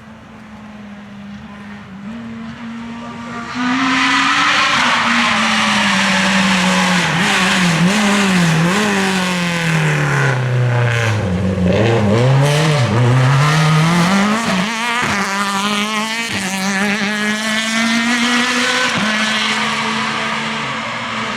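Naturally aspirated Group F2000 rally car engine approaching at high revs, loud about three and a half seconds in. The note falls through a series of quick blips and downshifts as it brakes for a corner, then climbs again as it accelerates away, with a gear change near the end.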